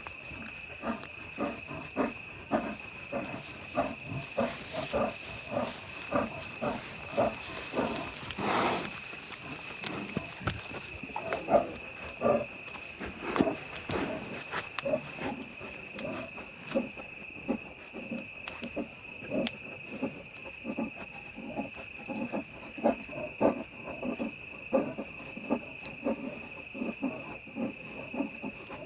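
A bear's short, pitched grunting calls, repeated about once a second, over a steady high-pitched whine.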